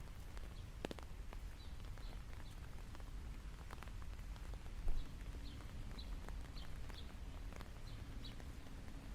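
Steady rain with scattered drip ticks, and a bird giving short high chirps several times. A dull low thump about five seconds in.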